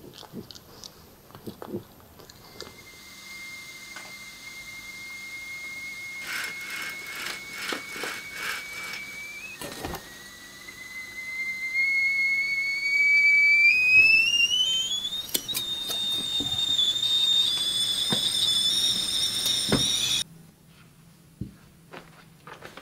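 A high whistling tone that slowly rises in pitch and grows louder, then holds steady and cuts off suddenly a couple of seconds before the end.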